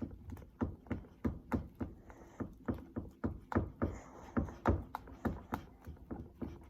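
A spoon or spatula knocks against the side of a bowl in a quick, even rhythm, about three strokes a second, as a still-runny slime mixture is stirred.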